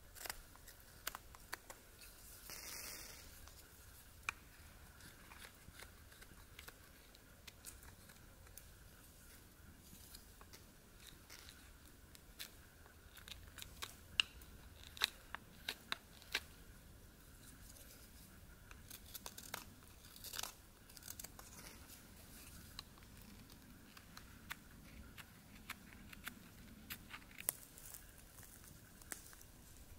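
A knife carving a wooden spoon: short, irregular shaving cuts and scrapes of the blade through the wood, with a longer drawn cut about three seconds in.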